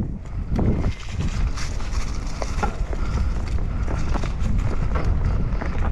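Wind buffeting the action-camera microphone over the rumble of a Cube Stereo 150 full-suspension mountain bike's tyres rolling fast across grass and fallen leaves, with frequent clicks and rattles from the bike over the bumps.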